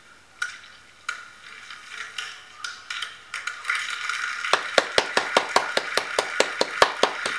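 Hand claps close to the microphone, about five a second, starting about four and a half seconds in, over fainter crowd applause played through a TV speaker. Before that, a few scattered light clicks.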